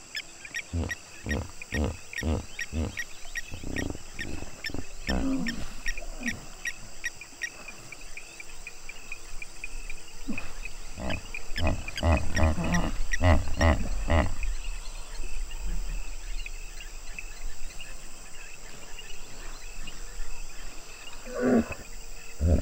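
Common hippos calling: series of deep, rhythmic grunting honks in bouts, near the start and louder around the middle, with another bout starting near the end. Steady high chirping runs behind them.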